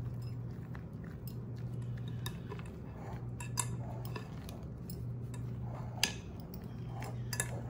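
Wooden spoon stirring thick, creamy cheesecake filling in a glass mixing bowl: soft scraping strokes with light clicks and knocks against the glass, a sharper click about six seconds in and another near the end. A steady low hum runs underneath.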